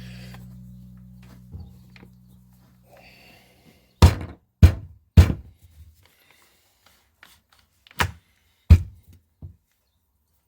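Sharp knocks and thunks of tool parts on a workbench while an SDS rotary hammer is reassembled: three quick ones about four seconds in, then two more near the end. Background music fades out first.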